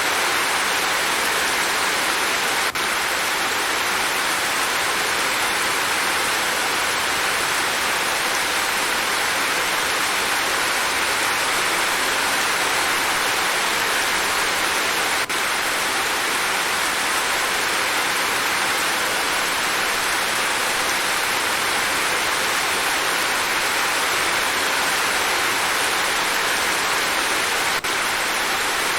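Steady heavy rain falling, an even hiss of drops with no let-up, and a faint click about every twelve seconds.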